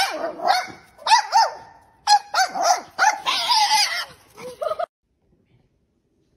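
Small dog barking and yapping rapidly over and over while chasing a cat, then cutting off suddenly about five seconds in.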